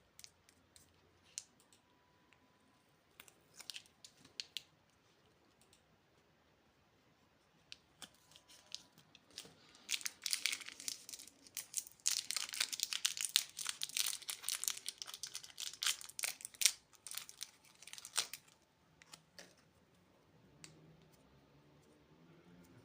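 Candy packaging being torn and crinkled open. Scattered light clicks and rustles come first, then a dense run of crinkling and tearing from about ten seconds in until about eighteen seconds.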